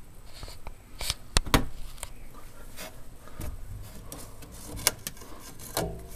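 Irregular sharp clicks and knocks, about a dozen, loudest about a second and a half in.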